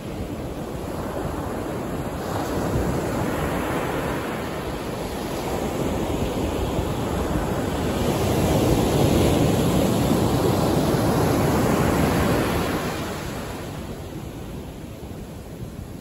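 Ocean surf breaking on a sandy beach: the rush of a wave builds, is loudest a little past the middle as it breaks and washes up the sand, then eases off near the end.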